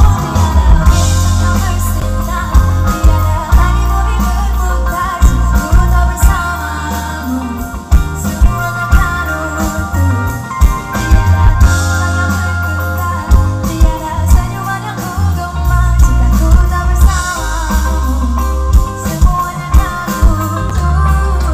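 Live pop duet through a loud concert PA: a band with a steady kick drum and bass line, and singing over it.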